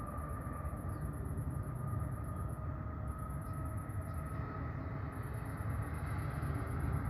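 Steady low outdoor rumble of distant background noise, with a faint, very high-pitched pulsing trill that goes in stretches of one to two seconds and breaks off briefly about three and five seconds in.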